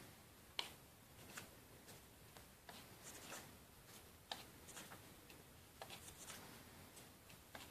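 Paper pages of a hardcover comic book being turned by hand: quiet rustling broken by a series of sharp little flicks and snaps as each page is lifted and let fall.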